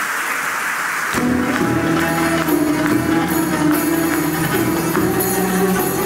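Brief audience applause, then about a second in a Turkish classical music ensemble of violins, cello and clarinet starts an instrumental song introduction over a light percussion beat.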